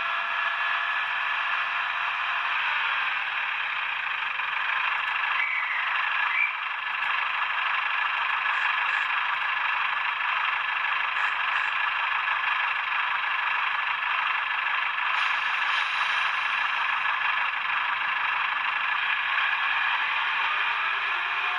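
Class 142 diesel railcar engine sound played by an ESU LokSound v5 DCC decoder through a tiny Sugarcube speaker in an N gauge model, running steadily. It sounds thin and tinny, with almost no bass.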